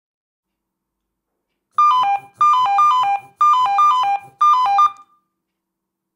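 Motorola digital pager sounding its alarm tone: a short falling melody of electronic beeps, played about four times over three seconds and then stopping. It signals an incoming fire brigade call-out from the dispatch centre.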